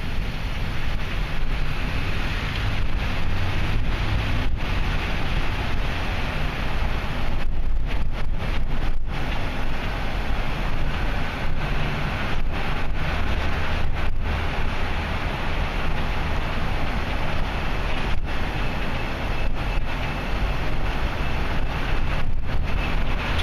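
Steady low rumble of a vehicle's engine and tyre noise heard from inside the cab while driving slowly through a road tunnel.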